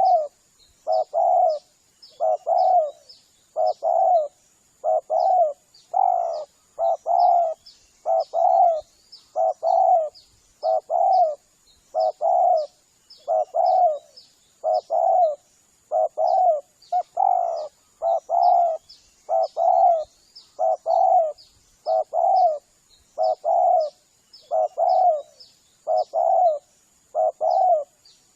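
Spotted dove cooing a lure call: short phrases of two or three soft coos, repeated over and over about every second and a half. Faint high chirps and a thin steady high whine run behind it.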